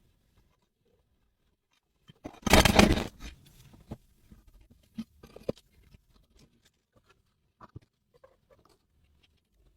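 Workshop handling noises from work on chainsaw parts: a loud rush of scraping or rubbing noise lasting about a second, then a scatter of light clicks and taps.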